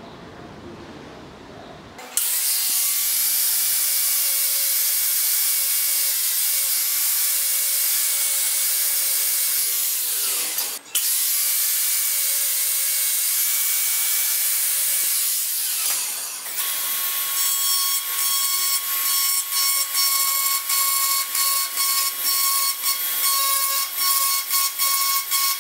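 Angle grinder grinding a brass tube, a steady high whine with a brief stop near the middle. About two-thirds through it gives way to a rotary tool with a carbide burr whining at a steady pitch, its loudness pulsing rapidly as the burr cuts into the brass at the joint.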